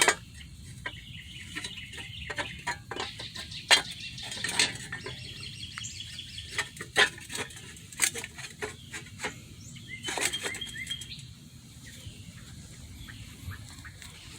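Irregular sharp metal clinks and taps as hub parts and tools are handled during a front wheel hub swap, with birds chirping faintly in the background.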